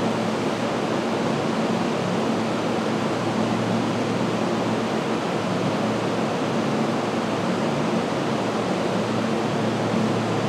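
Steady rushing noise with a low hum from a stopped Keihan 6000 series electric train's rooftop air conditioners and auxiliary equipment.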